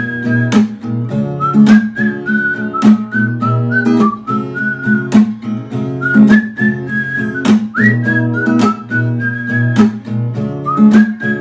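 Background music: a whistled melody over plucked guitar, with a steady beat.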